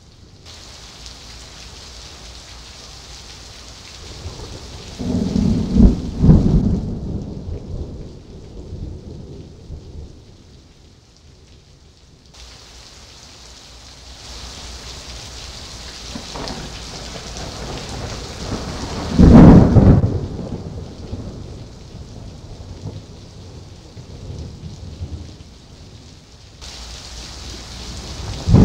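Heavy thunderstorm rain hissing steadily, broken by two loud claps of thunder from nearby cloud-to-ground lightning: one about five seconds in that cracks twice and rumbles for a couple of seconds, and a louder one about nineteen seconds in. Another thunderclap begins at the very end.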